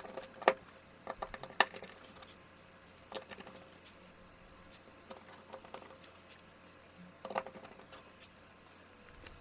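Light, scattered clicks and taps of tiny screws being fitted and driven into a smartphone's frame with a precision screwdriver, a handful of sharp ticks spread a second or more apart.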